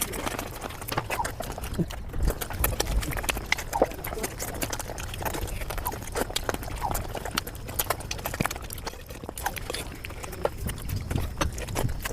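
Eating sounds played back at about five times normal speed: a dense, rapid stream of chewing and mouth clicks with no pauses.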